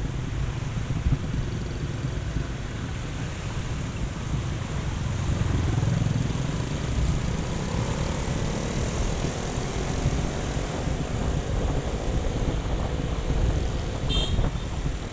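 Steady low rumble of a moving vehicle mixed with wind on the microphone, with a faint engine tone rising and falling in pitch through the middle.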